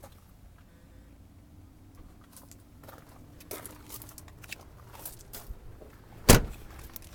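Light clicks and rustles of handling around the Jeep Grand Cherokee's passenger side, then one loud thump about six seconds in as the passenger door is shut.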